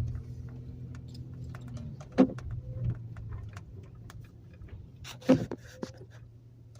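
Steady low hum of a vehicle, with two sharp knocks about three seconds apart.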